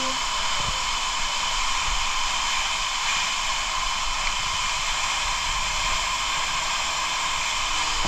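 Steady rush of a tall waterfall pouring onto rocks at close range, an unbroken hiss of falling water.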